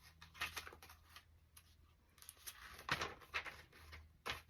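Paper rustling and light clicks, pages of an instruction booklet being handled and turned, with a sharper tap near the end.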